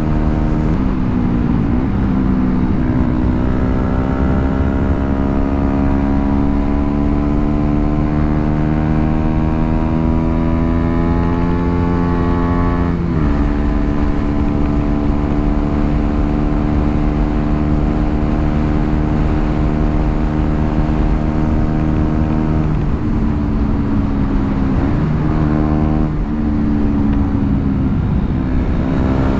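KTM Duke 125's single-cylinder four-stroke engine under way. About a second in the revs dip, then climb slowly and steadily for about ten seconds before dropping suddenly. The engine then holds steady revs for a long stretch, and near the end the revs drop and pick up again several times in quick succession.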